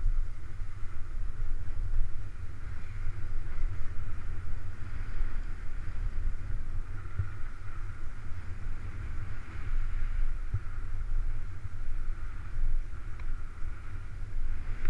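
Wind buffeting the microphone of a camera carried down a ski run, with a steady hiss of sliding over groomed snow.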